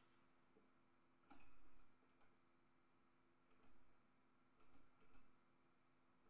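A few soft computer-mouse clicks, spread irregularly over several seconds, over a faint steady electrical hum in a near-silent room.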